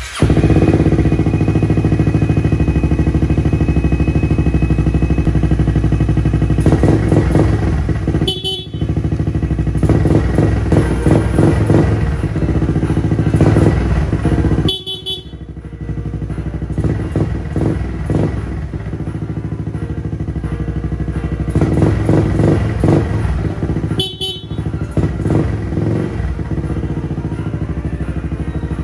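Yamaha Grand Majesty 250 big scooter with a DEVIL aftermarket muffler, starting up right at the beginning. It idles with a deep exhaust note and is revved in several bursts, with short sudden dips in the sound three times.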